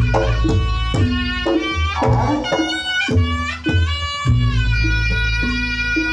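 Reog Ponorogo gamelan music through a loud sound system: a reedy wind melody with sliding notes over kendang drum strokes and deep booming low notes.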